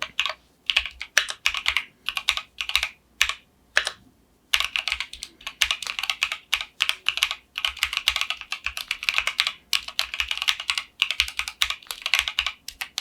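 Typing on a Keychron Q1 Pro mechanical keyboard fitted with factory-lubed Gateron North Pole 2.0 Yellow linear switches: a fast, dense run of keystroke clacks with a short pause about four seconds in.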